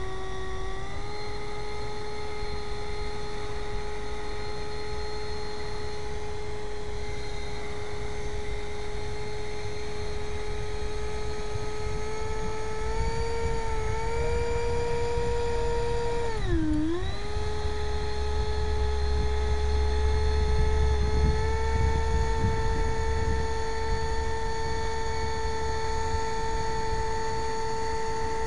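Motor and propeller of a radio-controlled Slowboat Water Maiden seaplane running with a steady whine; its pitch rises slightly about a second in, then dips sharply and comes back up about two-thirds of the way through. A low rumble joins in for a few seconds after the dip.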